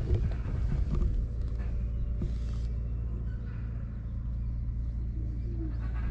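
A steady low rumble, with a few faint taps and a brief soft rustle about two seconds in.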